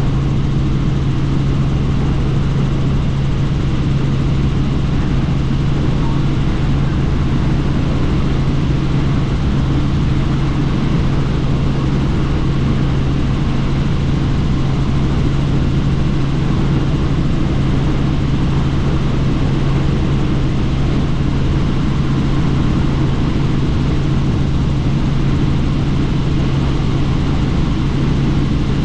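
Helicopter in flight heard from the open, doors-off cabin: a steady low hum from rotors and engine under an even rush of noise, unchanging throughout.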